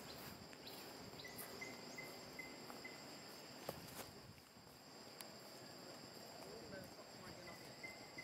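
Faint, steady high-pitched drone of insects, with a short run of evenly spaced high pips about a second in and again near the end, and a few scattered faint clicks.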